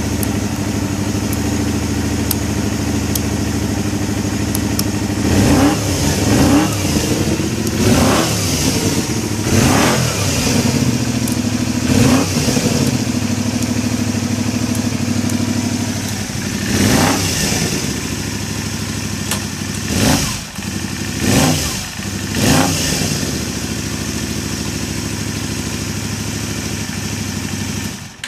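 Kawasaki Eliminator 250V (VN250A) V-twin running through an aftermarket Supertrapp muffler: a steady idle broken by a series of quick throttle blips, each rising and falling in pitch, through the middle of the stretch before it settles back to idle.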